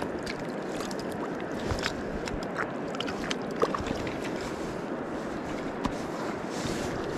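River water running and lapping in the shallows at the bank, with scattered small splashes and ticks as hands move in the water around a trout held in a landing net.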